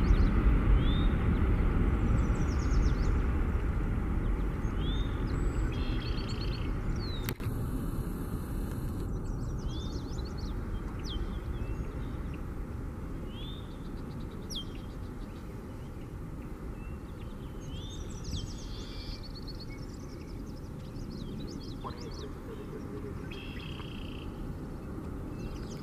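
Boeing 737 airliner's jet engines on its takeoff run, a deep rumble that fades steadily away as the jet climbs out. Small birds chirp repeatedly over it.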